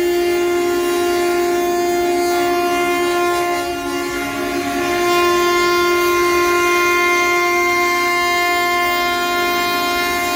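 Semi-truck horns held on continuously, several steady pitched tones sounding together. They dip briefly about four seconds in, then come back louder.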